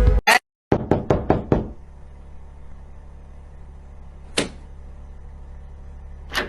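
Knocking on a door: a quick run of about five knocks, then a single knock a few seconds later and two more near the end, over a low steady hum.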